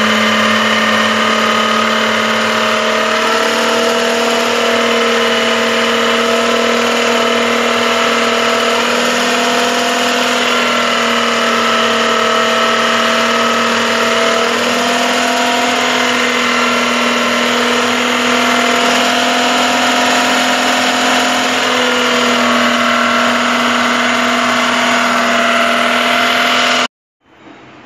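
Food processor's electric motor spinning a citrus-juicer cone at steady speed, an even whine with a low hum, as orange halves are pressed onto the cone. It cuts off abruptly near the end.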